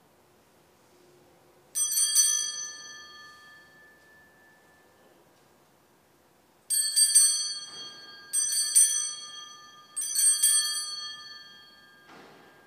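Altar bells rung at the elevation during the consecration of the Mass. They ring once about two seconds in, then three times in quick succession, about a second and a half apart, near the middle, each ring a bright jangle that dies away over a second or so.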